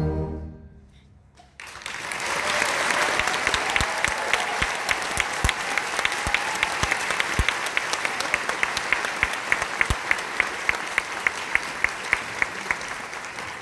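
A concert band's final chord dies away, and after a second of quiet an audience bursts into applause that runs on for about eleven seconds. One person's claps sound close and sharp, about three a second, over the rest, and the applause thins out near the end.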